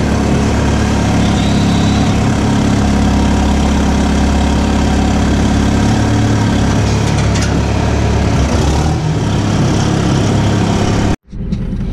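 Logging skidder's diesel engine idling steadily, heard from the operator's seat. The sound cuts off abruptly near the end.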